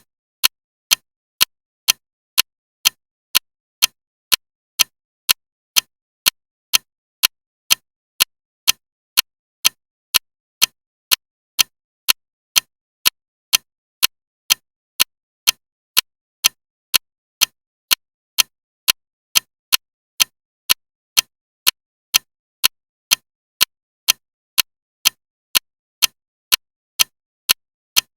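Clock ticking loudly and evenly, about two sharp ticks a second with silence between them.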